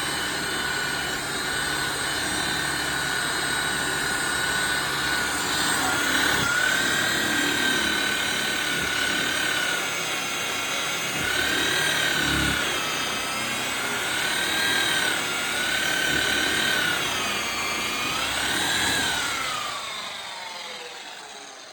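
Electric polisher buffing a car bumper: a steady motor whine that wavers up and down in pitch, then winds down and fades near the end as it is switched off.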